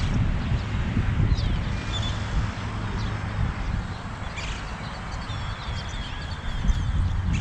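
Low rumbling noise of wind and handling on the microphone, with several short high bird chirps and a thin held whistle-like call heard in bursts.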